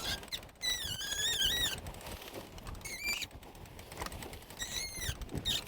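Reefing line squeaking in short, wavering squeals as it is hauled in under load through the boat's blocks, tensioning the foot of the reefed mainsail. There are about four squeals.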